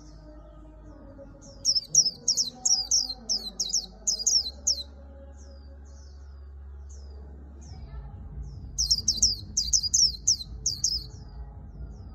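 Caged white-eye singing the rapid twittering song that keepers call 'líu', in two bursts of quick high notes, about 1.5 to 5 seconds in and again about 9 to 11 seconds in, with single short chip calls between them.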